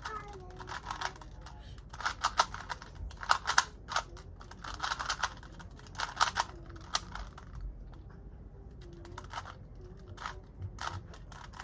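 3x3 Rubik's cube being twisted by hand: quick irregular runs of plastic clicks and clacks as the layers turn, with a brief pause about eight seconds in.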